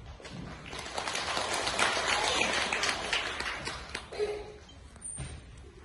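Audience applauding: clapping swells about a second in and dies away after about four seconds.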